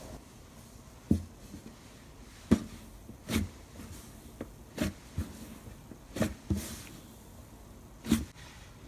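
Slime being pressed and played with by hand, giving about eight sharp clicking pops at irregular intervals.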